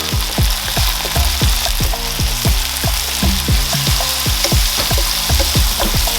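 Onions and garlic sizzling steadily as they fry in hot oil in a pan, with an occasional stir. A backing track with a steady low beat plays along.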